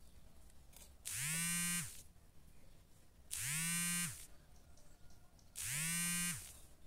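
A small motor buzzing in three short runs about two seconds apart: each spins up quickly, holds a steady pitch for under a second, then winds down and stops.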